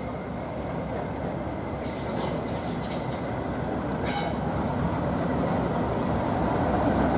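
Class 37 diesel-electric locomotive 37215's English Electric V12 engine running as the loco moves slowly along the platform, growing steadily louder as it nears. A few brief high-pitched squeals come through about two and four seconds in.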